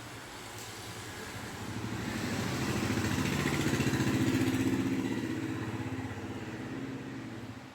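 A motor vehicle's engine passing by, with a fast pulsing beat. It swells to a peak about four seconds in, fades, and cuts off abruptly at the end.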